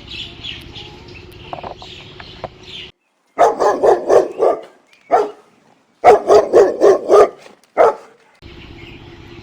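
A dog barking in two runs of quick barks, with single barks between and after, over faint background noise.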